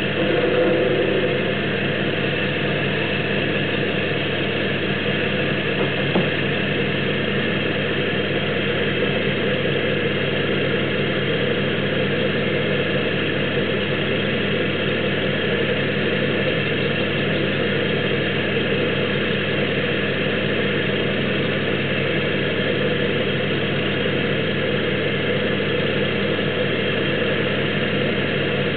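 Small woodturning lathe's electric motor running steadily at constant speed, with an even hum, and a single light tick about six seconds in.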